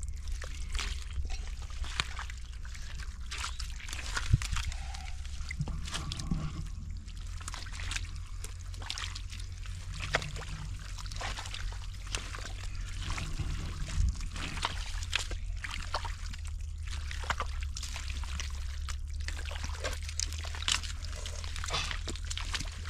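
Shallow water in a drained-down wetland pool being splashed and sloshed, with trickling and pouring water, in many short irregular splashes over a steady low rumble.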